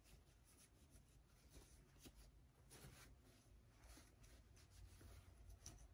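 Near silence, with faint, irregular rustling of a cloth face mask being handled and creased by hand.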